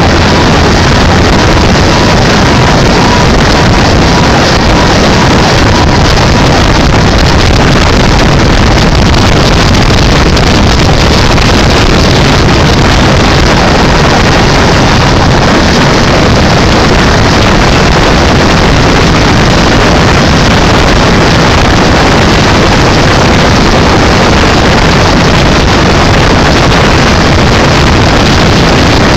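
Fire department boat under way: a loud, steady rush of wind on the phone's microphone mixed with the boat's engine and water noise, unchanging throughout.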